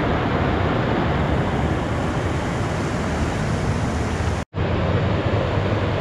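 Fast-flowing mountain stream rushing close to the microphone: a steady, loud rush of water with a heavy low rumble. It breaks off for an instant about four and a half seconds in.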